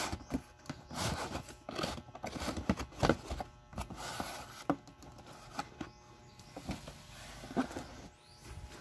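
Paper and cardboard packaging being handled: rustling paper sheets and scattered clicks and knocks as a router is lifted out of a moulded pulp tray. The sound is busiest in the first three or four seconds and sparser after.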